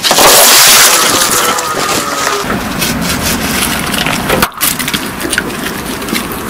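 A car tyre rolling onto a whole fruit and crushing it: a sudden loud crunching and splitting that lasts about a second, then continued crackling. About four and a half seconds in, lighter crackles as a plastic sauce pouch is squashed under the tyre and bursts.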